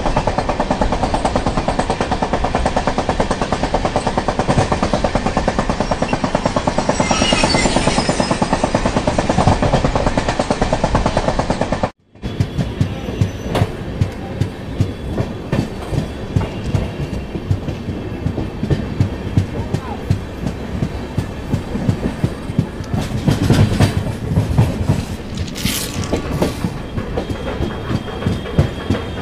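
Indian Railways passenger train running at speed, heard from aboard: a steady rumble and rush with the wheels clattering rapidly over the track. About twelve seconds in it cuts abruptly to a second run where the clickety-clack of wheels over rail joints comes as distinct, spaced clacks over a lower rumble.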